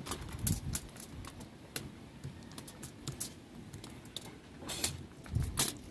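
Crumpled aluminium foil crinkling in scattered light clicks, with two longer crackles near the end, over a low rumble.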